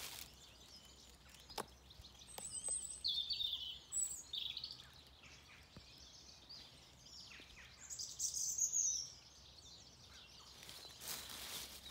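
Wild birds singing and calling in woodland, with bursts of high chirping phrases about two to four seconds in and again near nine seconds. A rustling noise comes in near the end.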